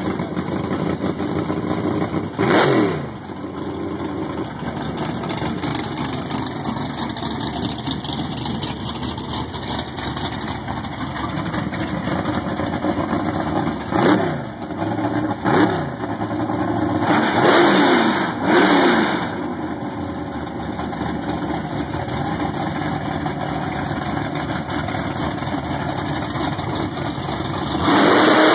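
Drag race car engines idling in the staging lane, blipped about five times into short revs that rise and fall back quickly. Near the end the engine noise jumps louder and stays up.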